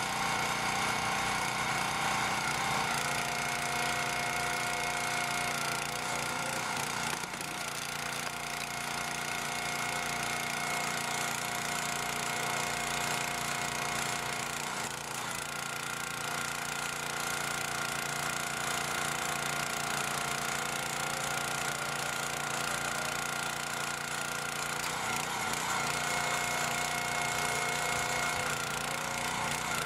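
Jansen HS-22A62 log splitter's 6.5 PS OHV petrol engine running steadily while the hydraulic splitting wedge presses into a large log, its pitch shifting slightly a few times.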